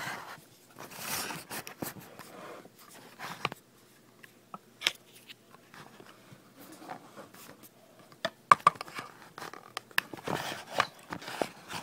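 Handling noise: scattered clicks, taps and rustles of paper, a plastic phone case and scissors being moved about, with the sharpest clicks a little past the middle.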